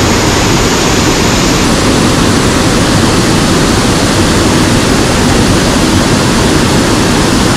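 Mountain stream water rushing loudly and steadily close by, an even hiss with no breaks.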